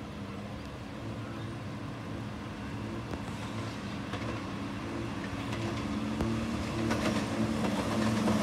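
Diesel multiple-unit train with Cummins engines approaching, its engine drone growing steadily louder.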